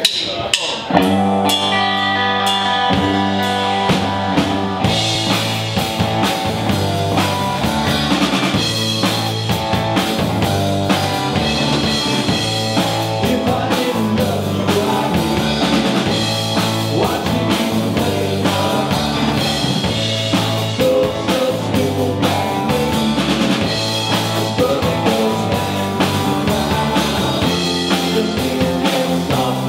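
Live rock band playing: drum kit, bass guitar, electric guitar and keyboard. The drums get busier in the high end, with more cymbal, about five seconds in.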